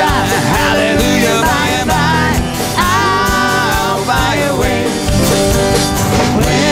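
Live country-style band: a man singing over strummed acoustic guitar with a steady drum beat.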